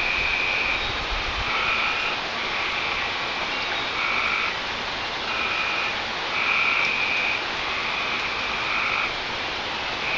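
Frogs calling, short calls repeating about once a second, over a steady hiss of rain.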